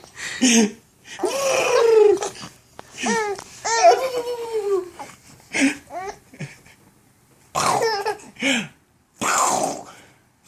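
A baby laughing in short, hiccup-like bursts with breathy gasps between them, never building into a full belly laugh. The laughs come in clusters separated by brief pauses.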